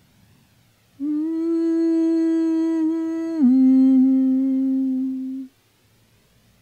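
A voice humming two long held notes, the second a little lower than the first, starting about a second in.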